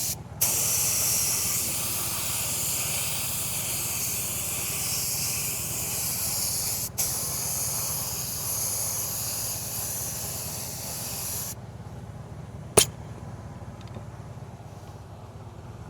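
Clear coat being sprayed onto a repaired alloy wheel: a steady hiss in two passes, broken briefly about seven seconds in and stopping about four seconds before the end. A single sharp click follows about a second later.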